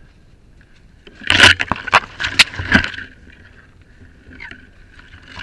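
A quick run of loud knocks and scrapes, about half a dozen sharp hits over under two seconds starting about a second in, as a dirt bike and its mounted camera are knocked about on the dirt trail.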